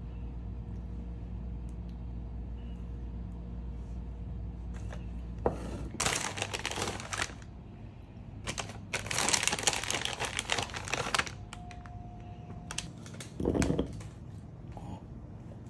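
A low steady hum for the first few seconds, then plastic packaging crinkling in two bursts as shredded cheese is handled and sprinkled onto the tacos, and a dull knock near the end.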